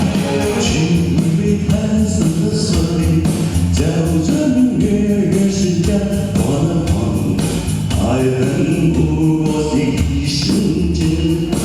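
A pop song being sung, the voices over a full musical accompaniment with a steady beat.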